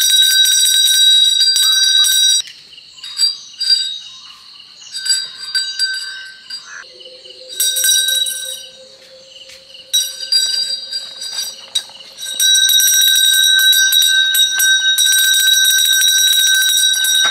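Onappottan's small hand bell shaken rapidly, a bright continuous jingling ring. It rings steadily at first, breaks into shorter spells with gaps in the middle, then rings steadily again from about twelve seconds in.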